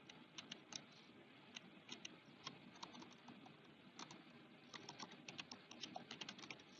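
Faint typing on a computer keyboard: irregular keystroke clicks in short runs, with pauses of up to a second or so between them.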